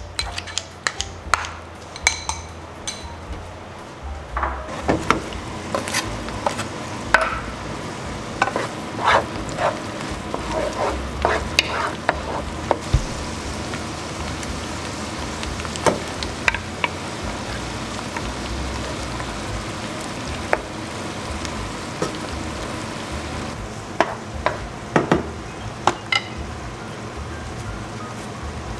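Kitchen scissors snipping kimchi in a bowl, a run of sharp clicks for the first few seconds. Then chopped kimchi goes into a pan of onion and garlic frying in bacon fat: a steady sizzle from about five seconds in, with a wooden spoon knocking and scraping as it is stirred.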